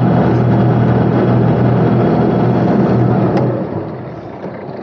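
Sailing boat's engine running hard in reverse, then throttled back about three and a half seconds in to a lower, quieter run.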